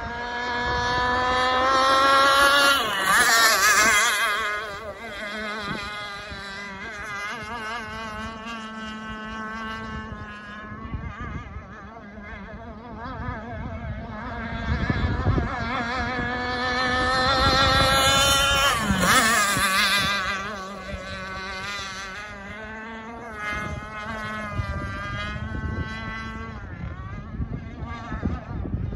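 Enforcer Stingray RC hydroplane running flat out, its motor's high buzz rising in pitch as it comes in and dropping sharply as it passes close, about 3 seconds in and again about 19 seconds in. Between the passes the buzz is fainter and wavers in pitch as the boat runs the far end of the pond.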